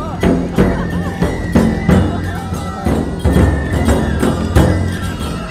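Nebuta festival parade music: big taiko drums beating over and over, with a high flute line and jingling bells.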